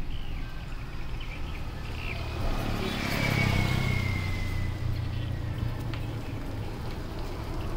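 A motor vehicle passing by: its engine hum swells about two and a half seconds in, peaks, then fades over the next few seconds, with a high whine that falls slightly in pitch as it goes past.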